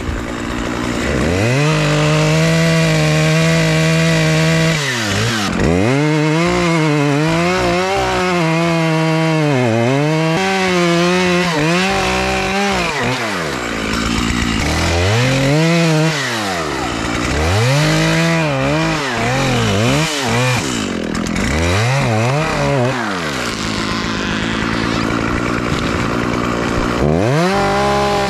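Makita EA7900P 79cc two-stroke chainsaw running and cutting small trees: the engine revs up to a high pitch, sags as the chain loads in the wood, and climbs again, over and over.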